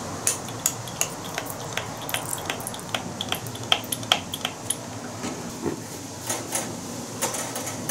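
Irregular light clicks and clinks of metal while oil is dripped onto a thin steel mini griddle plate resting on a wire rack and wiped in with a paper towel for seasoning, over a steady low hiss.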